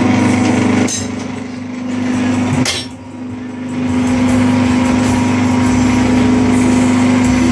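Hydraulic pump unit of a gallon-cap moulding press running with a steady, loud hum. It dips for a few seconds about a second in, with two sharp clicks about one and two-and-a-half seconds in.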